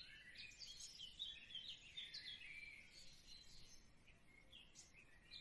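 Faint chorus of small birds chirping, many short overlapping calls throughout.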